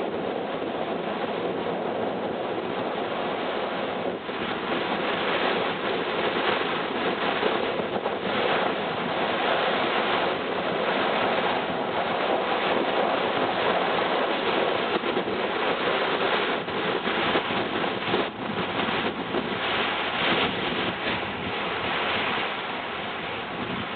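Strong wind gusting across the microphone over the steady rush of surf on a choppy sea.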